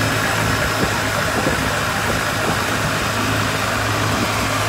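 Long-tail boat engine running steadily as the boat cruises, a constant low drone with no change in speed.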